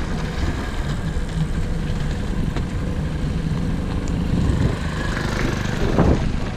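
Hero XPulse 200 motorcycle engine running at low speed over gravel, with a brief louder clatter about six seconds in.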